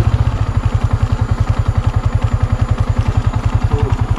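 Yamaha MT-15's single-cylinder four-stroke engine idling, an even throb of about a dozen pulses a second.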